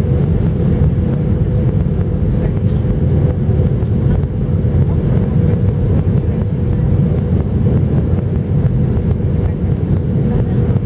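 Cabin noise inside an Airbus A319 on approach: a loud, even, low rumble of the engines and airflow, with a steady hum over it.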